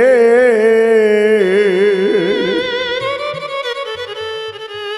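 Bangla Baul song between sung lines. A long held note with wide vibrato trails off about two seconds in, and steady held keyboard notes with a bowed-string tone carry on.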